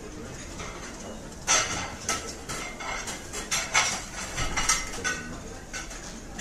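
Dishes and cutlery clinking and clattering, a string of irregular sharp knocks and clinks.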